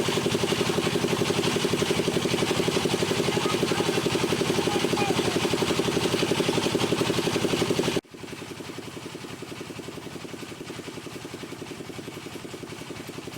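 Wood lathe running steadily with a fast, even pulsing. About eight seconds in it drops suddenly to a much quieter level and carries on.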